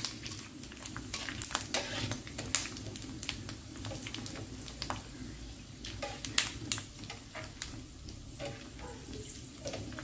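Pork rinds deep-frying in a wok of hot oil, sizzling with frequent sharp crackles. A metal skimmer stirs and scoops them in the pan. This is the final fry of the sun-dried skin, taking it to a light golden crisp.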